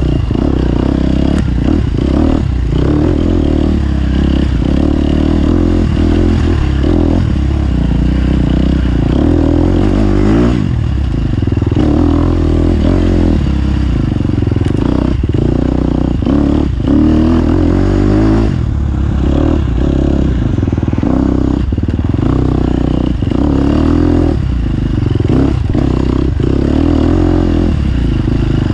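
Off-road motorcycle engine running hard over rough terrain, its pitch rising and falling with the throttle, with frequent knocks and rattles from the bike over bumps.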